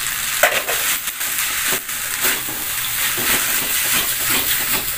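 Rice vermicelli stir-frying in a steel wok: a steady sizzle, with the metal spatula scraping and knocking against the pan several times as the noodles are tossed.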